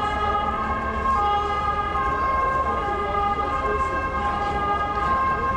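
Emergency vehicle siren sounding steadily, switching back and forth between two pitches about once a second, with faint street voices beneath.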